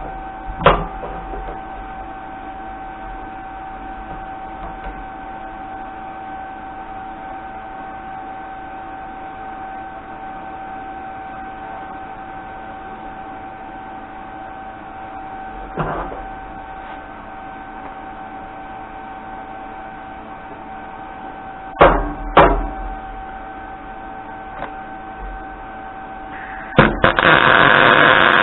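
A steady mechanical hum with a few sharp metal knocks, then near the end a much louder steady noise starts up and keeps going.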